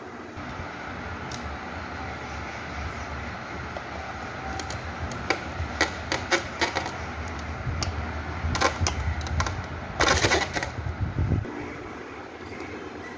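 Screwdriver and bolt clicking and tapping against the ceiling fan's metal downrod and motor mount as the downrod is fastened: irregular sharp metal clicks, with a short scraping burst about ten seconds in. A low steady rumble runs underneath and stops shortly before the end.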